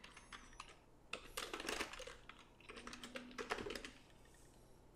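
Computer keyboard keystrokes in short, irregular runs of typing, faint, stopping about four seconds in.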